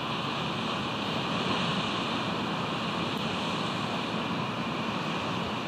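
Steady rush of wind and ocean surf on an outdoor camera microphone, with a faint steady high tone under it.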